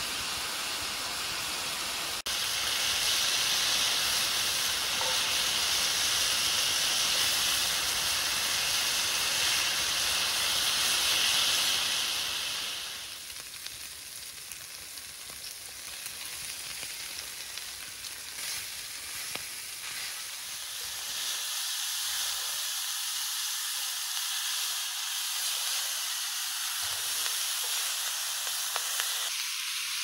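Chicken pieces sizzling in hot oil in a steel pan over a wood fire: a steady frying hiss, loudest through the first dozen seconds and then quieter.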